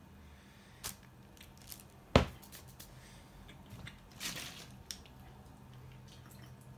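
Handling noises from a meal at a table: a single sharp knock about two seconds in, a few small clicks, and a short crinkly rustle about four seconds in, as the tacos is put down and a plastic water bottle is picked up and opened for a drink.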